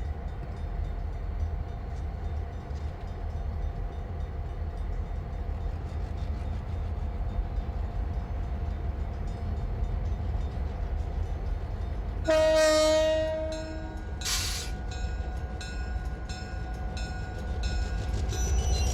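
Railway yard: trains running with a steady low rumble. About twelve seconds in a train horn sounds one blast of a second and a half or so. It is followed by a short hiss and then a run of evenly spaced metallic clanks.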